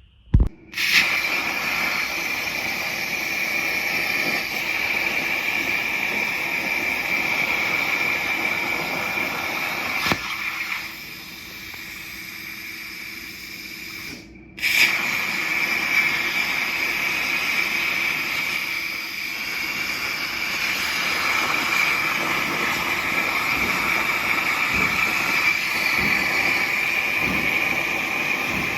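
Metal-fabrication tool noise: a steady hiss with a high-pitched whine. It drops to a quieter hum about eleven seconds in and comes back loud a few seconds later.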